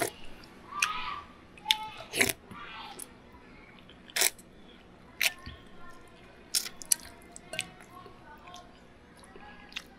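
A person eating chicken soup with a metal spoon: chewing and mouth sounds, broken by a dozen or so short sharp clicks and knocks, the loudest about two seconds in, near four seconds and around seven seconds.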